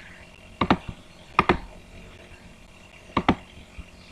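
Computer keyboard keys struck a few times: three quick clusters of sharp clicks with pauses between them, and a faint click near the end.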